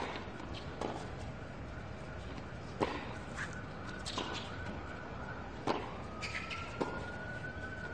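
Tennis rally on a hard court: a serve, then sharp racket-on-ball strikes roughly every one to two seconds, over a steady hiss of outdoor ambience. A faint thin tone rises slowly in the last two seconds.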